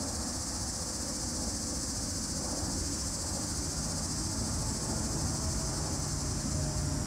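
Steady, high-pitched chorus of crickets, continuous and unbroken, over a low outdoor rumble. A faint low hum joins in about five seconds in.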